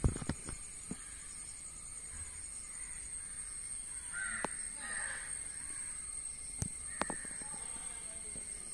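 Crows cawing: a short run of calls about four to five seconds in and another about seven seconds in, over a steady high-pitched whine. A few sharp clicks at the very start.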